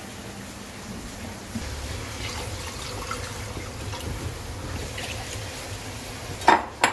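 Liquid poured from a ceramic bowl into a pot of simmering broth, trickling and dripping, then two sharp knocks near the end.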